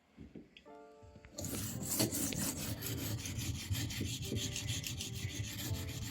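Steel knife blade, the Leatherman Rebar's 420HC blade, scraped in rapid back-and-forth strokes across the coarse side of a whetstone, starting about a second and a half in: regrinding the edge before raising a burr.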